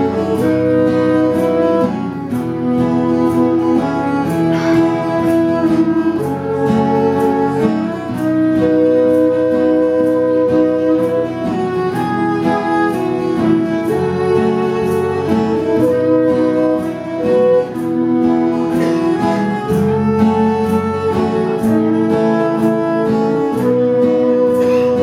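Instrumental break of a folk song: acoustic guitar strumming steadily under a melody instrument playing long held notes.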